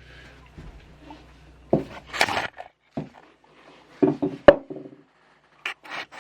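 Irregular knocks and clatters of hard objects. A cluster comes about two seconds in, and a single sharp click about four and a half seconds in is the loudest.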